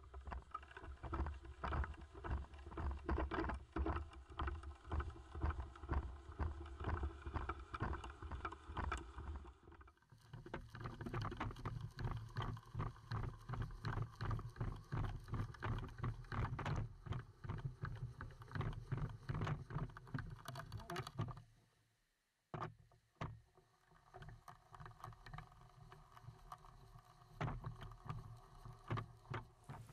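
Handheld power drill driving screws into wooden framing lumber, the motor running in repeated runs with rapid ticking, to tighten and stiffen the frame. It stops briefly about two-thirds of the way through.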